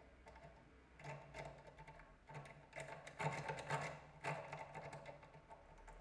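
Lock pick clicking and rattling against the pins inside a brass cylinder lock while the lock is being picked: rapid, irregular small metallic clicks in clusters, loudest a little past the middle.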